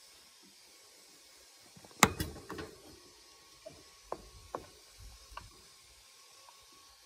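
A sharp knock about two seconds in, followed by a few lighter clicks and knocks, over a faint steady hum.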